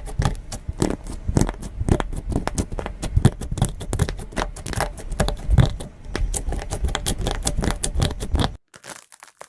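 Wax-coated slime being pressed and worked, giving a dense, irregular run of crackling clicks that stops abruptly near the end.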